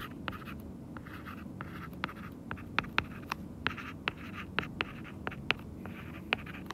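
A plastic stylus tip tapping and sliding on a tablet's glass screen as words are handwritten: irregular sharp ticks, about two a second, with short scratchy strokes between them.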